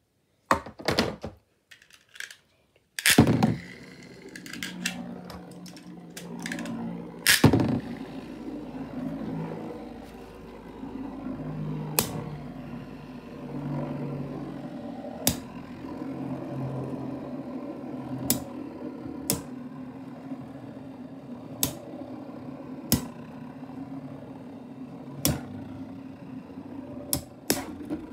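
Two metal Beyblade spinning tops launched onto a hard plastic lid: a few sharp clicks and a loud clack as they are released and land in the first few seconds, then a steady whirring hum of the tops spinning, broken by single sharp clacks every second or few as they strike each other.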